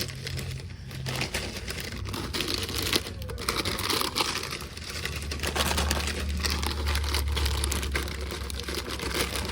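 Plastic snack bags crinkling and rustling as they are handled and pushed into a vending machine's spiral slots, with many small clicks. A steady low hum runs underneath, growing stronger about halfway through.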